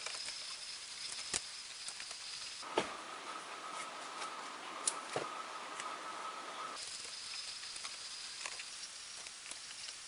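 Tape being pulled off the roll and wrapped around a bundle of spliced wiring: a quiet crackling rustle with a few light clicks.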